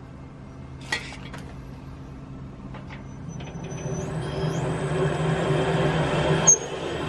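Metal lathe starting up and running: a motor whine that rises in pitch in steps and grows steadily louder as the spindle comes up to speed. A sharp click comes about a second in, and a brief loud knock near the end.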